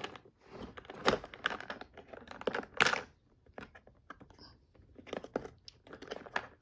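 Irregular plastic clicks and clacks from the latches and doors of a VTech Latches & Doors Busy Board being worked by hand.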